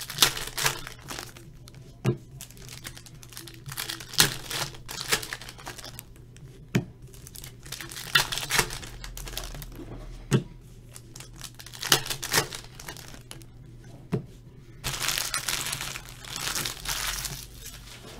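Baseball trading cards being handled and flicked through, with crinkling from the pack wrapper and sharp snaps every second or two as cards are shifted, and a longer stretch of crinkling about fifteen seconds in.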